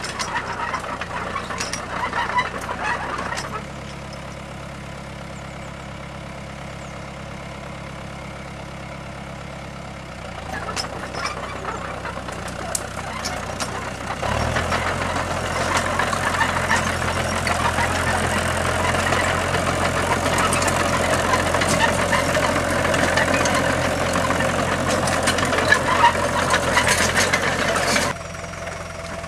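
Small crawler tractor's engine running while it drags a tine cultivator through grass. The engine sound changes abruptly a few times and is louder from about halfway through.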